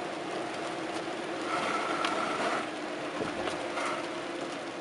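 Steady road and engine noise inside a moving car driving on wet roads. A faint tone sounds twice, about a second and a half in and again near the end.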